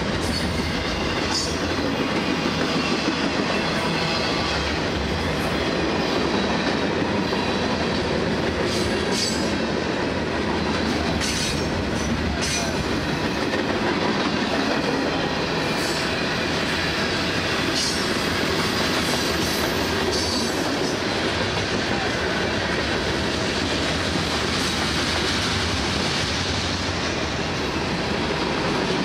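Freight train's covered hopper cars rolling past: a steady rumble of steel wheels on the rails, with short sharp clicks every few seconds.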